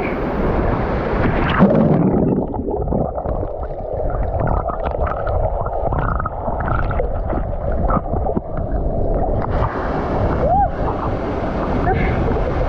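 Waterfall water rushing and splashing into a pool. The sound turns muffled and dull for several seconds in the middle, then opens up again.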